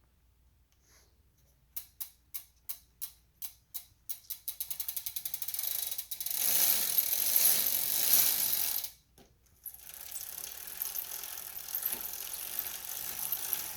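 Road bike's rear freehub ratcheting as the wheel and drivetrain are spun. It starts as separate clicks about three a second, quickens into a continuous buzz, gets louder for a few seconds, stops briefly, then runs on steadily.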